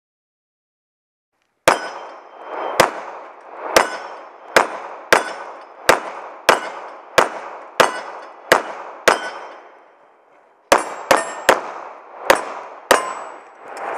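Pistol fired in a string of about sixteen shots starting about two seconds in, each a sharp crack with a short echo. The first run is about one shot a second, and after a pause of about a second and a half comes a quicker run of five.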